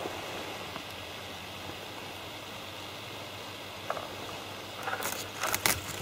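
Steady wind and open-air background noise, then a few sharp rustles and knocks near the end as a jacket sleeve brushes close to the microphone and a fishing rod is handled.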